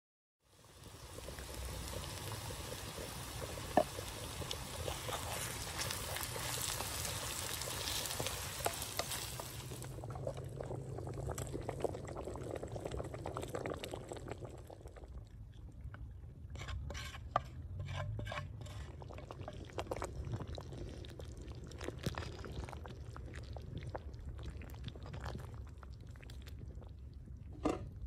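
Onions and turmeric sizzling in a frying pan. About ten seconds in this gives way to the fried mixture being scraped with a wooden spoon into a soup pot, then a run of sharp clicks of the spoon against the pot as it is stirred.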